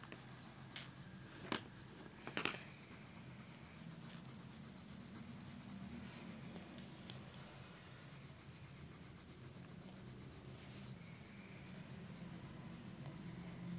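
Coloured pencil scratching faintly on the paper of a colouring book as an area is shaded in with steady back-and-forth strokes. There are a few light clicks in the first couple of seconds.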